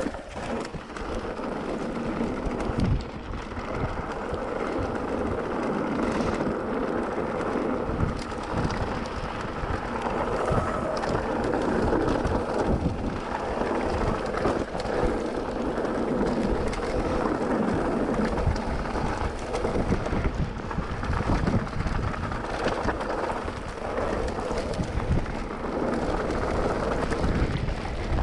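Mountain bike rolling fast down a rough dirt and gravel track: steady tyre noise and rattle over stones, with frequent knocks from bumps and a rumble of wind on the bike-mounted camera's microphone.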